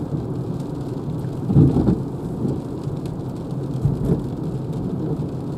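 Cabin noise of a Renault Zoe electric car driving in the rain: a steady low rumble of tyres on wet road and rain on the car, swelling briefly about a second and a half in.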